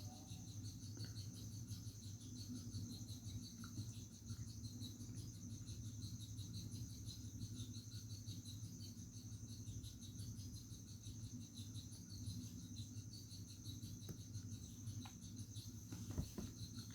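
Faint background: a steady, rapidly pulsing high-pitched trill typical of crickets, over a low steady hum. A few faint clicks come near the end.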